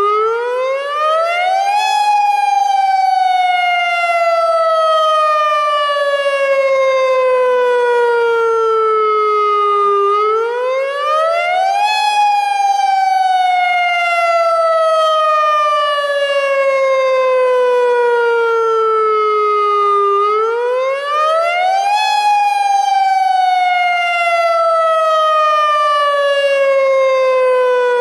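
AHAB (All Hazards Alert Broadcast) tsunami siren sounding the wailing tone used for real emergencies. Its pitch climbs quickly for about two seconds, then slides slowly down for about eight, three times over.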